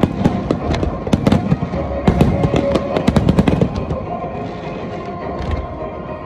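Aerial firework shells bursting in a rapid volley of sharp cracks and pops, thickest in the first few seconds and thinning out after about four seconds.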